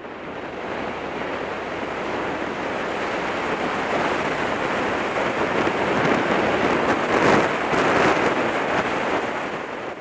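Wind noise buffeting the bare microphone of a helmet-mounted Contour action camera on a motorcycle at road speed, with no wind muff fitted: a dense, steady rush of air that grows gradually louder and eases slightly near the end.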